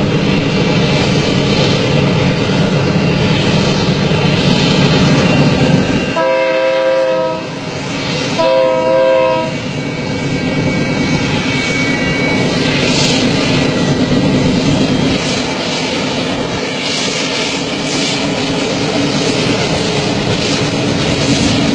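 A train running with a steady rumble, its horn sounding two short blasts about six and eight seconds in.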